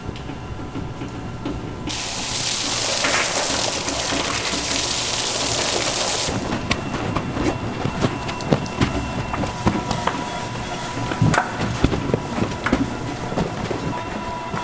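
Stainless-steel feed mixer running as powdered eel feed is worked into dough, with a steady hum. A loud hiss starts about two seconds in and stops abruptly about four seconds later, followed by irregular knocks and thuds as the clumping dough tumbles against the bowl.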